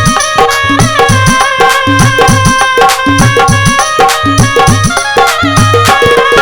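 Instrumental interlude of a Hindi devotional song: a fast hand-drum rhythm with deep strokes that drop in pitch, under a sustained melody line, with no singing.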